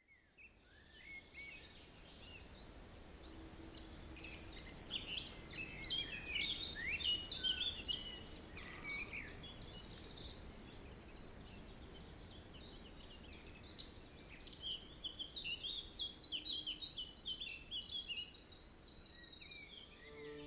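Several songbirds chirping and singing over a low outdoor ambience, fading in from silence at the start, with a fast, evenly repeated trill near the end.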